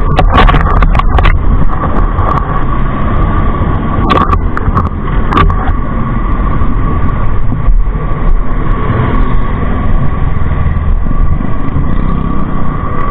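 Steady, loud rumble of vehicles and road traffic, with several sharp knocks and clicks in the first second and again about four to five seconds in.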